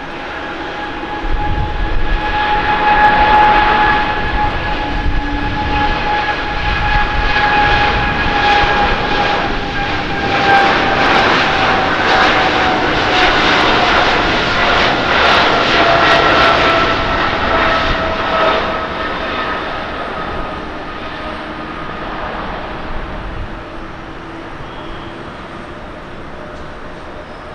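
Boeing 777-300ER's two GE90-115B turbofans at takeoff thrust through the takeoff roll and climb-out: a loud jet roar with a whine that slowly falls in pitch as the airliner passes, fading over the last several seconds.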